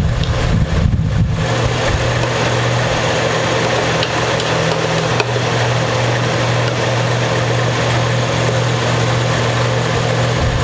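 Steady low mechanical hum, with a few faint clicks of a Phillips screwdriver working a screw out of an instrument's tailpiece.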